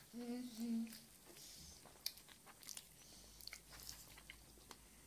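A child hums two short notes, an 'mm-mm' answer, at the start, then faint clicks and mouth noises of him biting and chewing a pancake.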